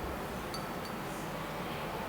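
Sparse, high metallic chime strikes, two short ringing clinks about half a second and just under a second in, over a soft steady hiss.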